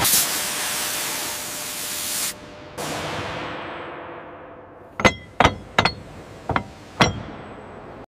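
A steady hiss that breaks off about two seconds in and comes back fainter, fading away. Then five sharp metallic clinks with a short ring over about two seconds, as a machined steel hub is set down on a greased, bolted steel flange.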